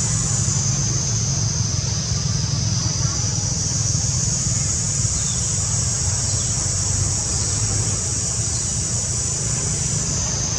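Steady forest ambience: a constant high-pitched insect drone over a low, even rumble, with no distinct events.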